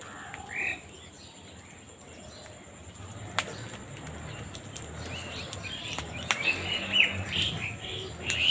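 Birds chirping: one short call about half a second in, then a quickening run of short, falling chirps from about six seconds on, with a few sharp clicks.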